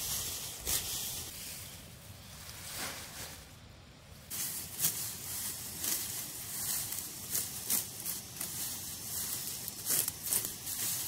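Irregular rustling with scattered light clicks and knocks, dipping quieter about two to four seconds in.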